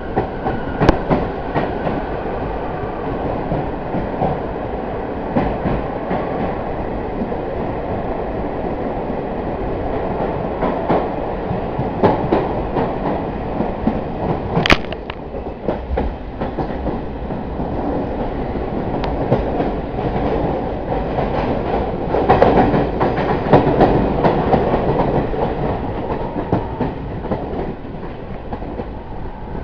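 Train running on the track, heard from aboard: a steady rumble of wheels on rail with irregular clicks and clanks, including one sharp clank about halfway through. The rumble grows louder about three-quarters of the way through.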